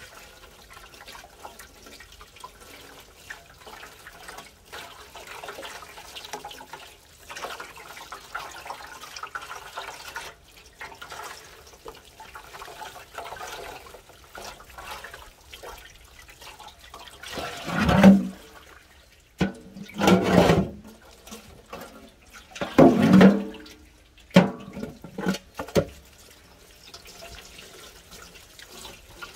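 Water running and splashing, with a handful of louder surges in the last third.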